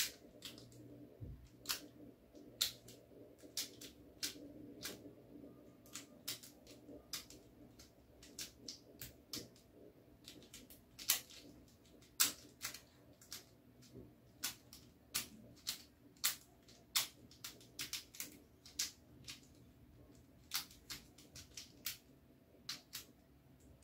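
A Qiyi 3 cm mini 3x3 speed cube being turned quickly through a timed solve: its layers clack in sharp, irregular clicks, often several a second, with short gaps. It is a mid-range cube that locks up now and then.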